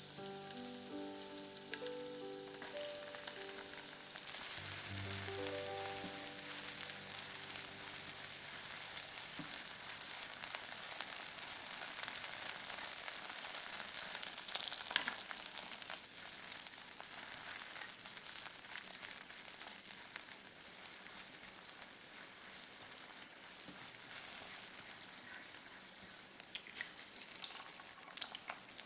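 Food sizzling as it fries in a hot oiled pan, a steady hiss that gets louder about four seconds in, with a few sharp clicks of a utensil against the pan.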